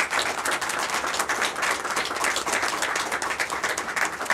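Applause: a roomful of people clapping, dense and steady.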